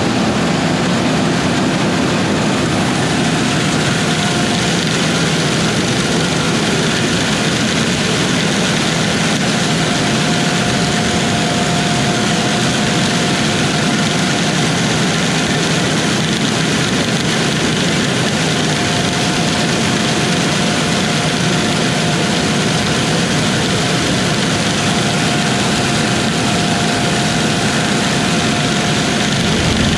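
Heavy farm harvest machinery running steadily: a dense, even engine and machine noise at constant speed, with a faint high whine coming and going.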